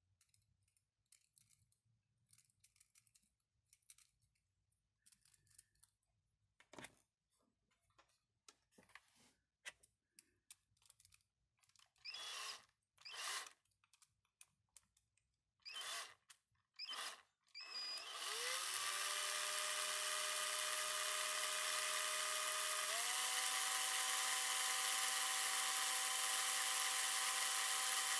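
Light plastic clicks as a 3D-printed mechanical counter is handled, then a small handheld electric drill spinning the counter's shaft: a few short bursts of the motor, then it runs steadily from about two-thirds in, its whine stepping up in pitch near the end.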